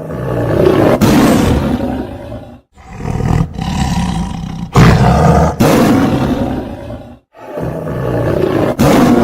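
Film sound effects of a tiger roaring: loud, rough roars in three stretches broken by brief silences, the middle one jumping suddenly louder partway through.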